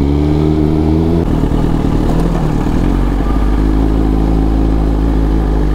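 Superbike engine running steadily, its note settling a little lower about a second in.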